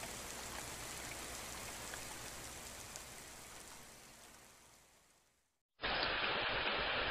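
Steady rain hiss that fades out over the first four and a half seconds. After about a second of silence, a second, duller rain sound starts abruptly near the end.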